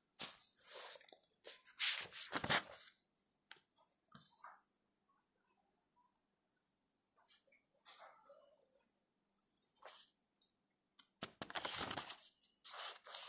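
A cricket chirping in a steady, rapidly pulsing high-pitched trill, with a few brief faint noises about two seconds in and again near the end.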